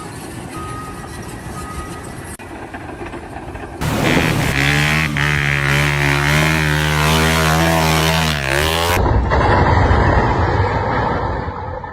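Machine noise across several abruptly cut segments: a steady engine runs loudly in the middle stretch, with a few short faint beeps near the start.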